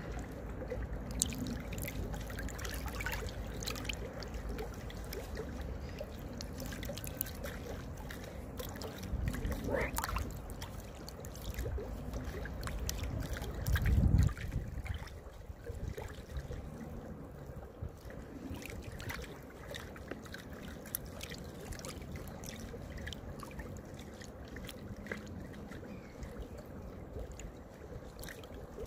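Choppy river water lapping and splashing against the bank and the branches at the water's edge, with a steady low rumble of wind on the microphone and a louder low surge about halfway through.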